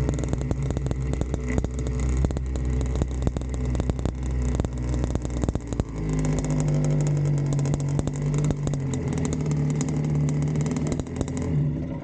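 A 50cc mini trail bike's small engine running at low speed, a steady engine note with fine rapid ticking throughout. About halfway through the note steps up in pitch and stays there, then falls away near the end.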